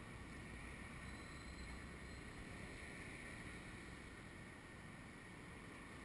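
Faint, steady outdoor background noise: a low rumble under an even hiss, with no distinct event.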